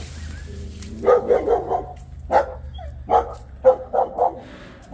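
Dog barking repeatedly at someone walking past, a quick run of barks about a second in followed by single barks every half second or so.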